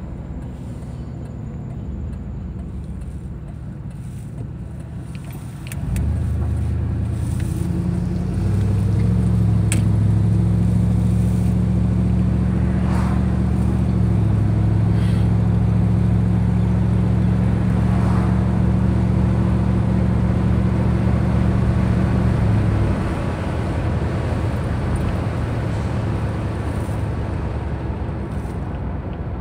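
Car engine and tyre noise heard from inside the cabin while driving. The car pulls away about six seconds in, and the engine note grows louder and steps up as it accelerates. Near the end it eases back to a quieter rumble as the car coasts.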